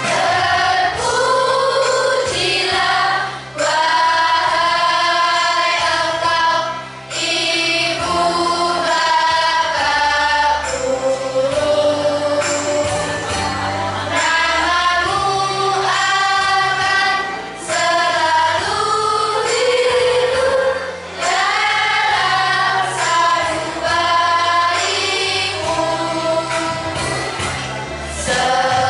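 A children's school choir of boys and girls sings a song into a microphone in phrases with short breaths between them. Steady low accompaniment notes sound beneath the voices.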